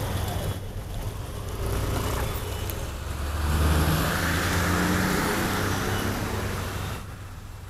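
Harley-Davidson Sportster 883's air-cooled V-twin idling at a standstill in wet city traffic, with the steady noise of surrounding vehicles. The traffic noise swells for a few seconds in the middle, as a nearby vehicle gets louder, then eases off near the end.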